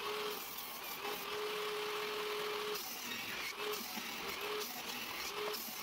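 Benchtop table saw running and ripping pine boards: a steady machine noise with a whine that comes and goes several times as the boards are fed through.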